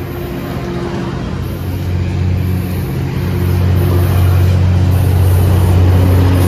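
Caltrain diesel-hauled push-pull train rolling past, its bilevel cars running on the rails while the diesel engine of the F40PH locomotive at the end draws near. The steady low engine drone grows louder about a third of the way in and stays loud.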